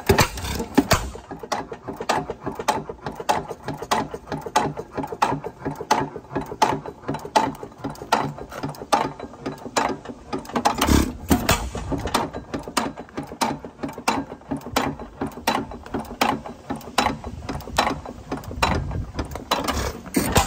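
6 hp Witte hit-and-miss engine running, its valve gear and governor making a steady clatter of clicks a few times a second as it coasts. A few heavier low thuds, about a second in, about halfway through and near the end, are its firing strokes.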